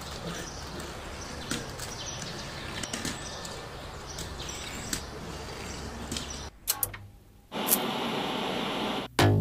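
A steady background ambience hiss with a low hum and faint, scattered high chirps, which drops out about six and a half seconds in. A burst of steady TV-static noise follows, cut off near the end by the first loud beats of electronic intro music.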